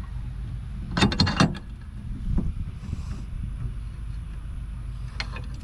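Socket ratchet and metal bracket hardware clicking and clanking as bolts are tightened: a quick cluster of sharp clicks about a second in, one more midway and a couple near the end. A steady low rumble of wind on the microphone runs underneath.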